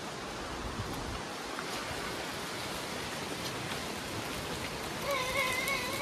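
Stream water running, a steady rush of water. Near the end a high, wavering call sounds for about a second.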